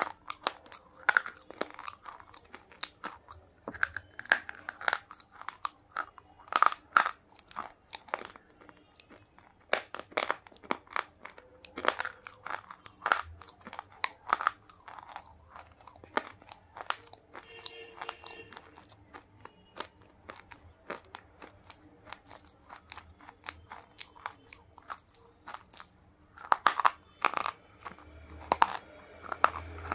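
Close-miked crunching and chewing of pink chalky 'dry bar' pieces: sharp brittle cracks as bites snap off, then grinding chews. The crunches thin out in the middle and come thick again near the end.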